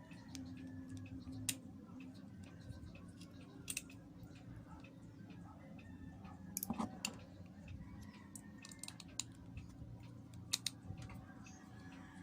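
Scattered small clicks and taps of a GoPro Hero 4 Silver's lens assembly and small parts being handled and worked on during a lens swap, a few sharper clicks standing out, over a steady low hum.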